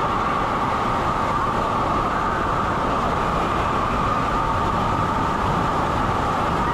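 Steady roar of churning, turbulent pool water at an indoor water park, with a constant hum held through it.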